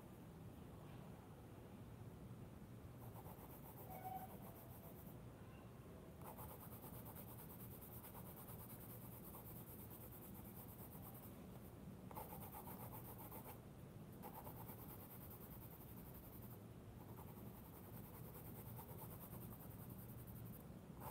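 Faint scratching of a Navneet Youva colored pencil shaded lightly across thick sketchbook paper, coming and going in stretches of strokes.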